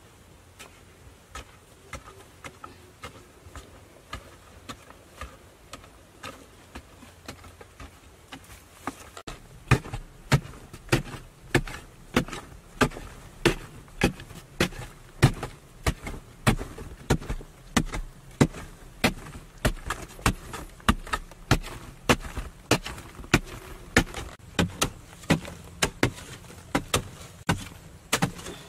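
A wooden-handled digging tool striking hard earth and clay over and over, about twice a second, loosening soil. The strikes are faint and sparse at first and become loud and regular from about nine seconds in.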